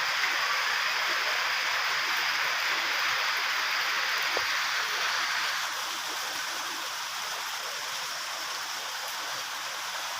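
Steady rush of water, easing slightly a little past halfway.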